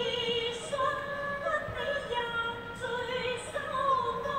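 Music with a woman singing long held notes.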